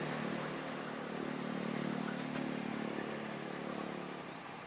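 A passenger train moving away along the track: a steady diesel engine hum over rail noise, fading as it recedes, with the hum dropping away near the end.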